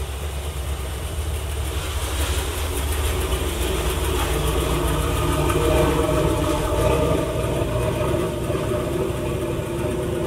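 Pontiac Trans Am's engine idling with a steady, pulsing low rumble.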